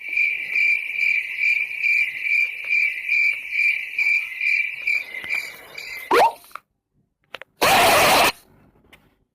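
Cricket chirping sound effect: a steady high trill pulsing about three times a second for about six seconds, then stopping. A short rising bloop follows, and a second or so later a loud burst of noise lasting under a second.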